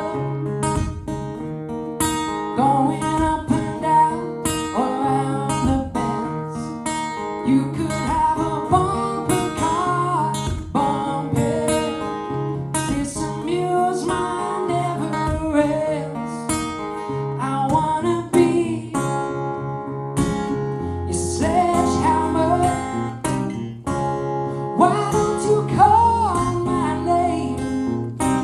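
Live song performance: strummed acoustic guitar accompanying a singing voice, playing continuously.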